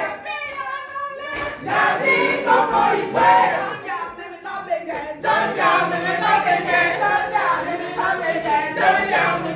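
A group of people singing a song together in chorus, many voices overlapping.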